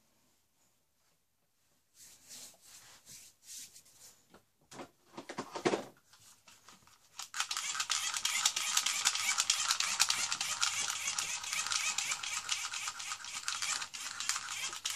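Tinny music from a small toy's speaker, with no bass, starts about seven seconds in and keeps playing, after a few seconds of soft handling rustles.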